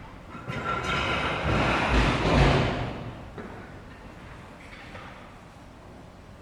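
Building repair work: a noisy rush of sound builds from about half a second in to a heavy thud around two and a half seconds, then dies away into a low, steady background.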